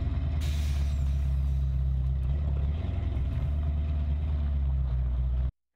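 LS V8 engine of a slammed 1947 Chevrolet panel truck running as the truck pulls away, a steady low exhaust note. It cuts off suddenly near the end.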